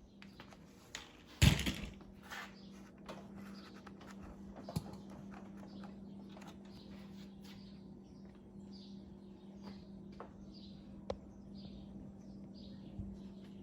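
A bird chirping over and over, short high calls about one or two a second, over a steady low hum, with one sharp knock about a second and a half in.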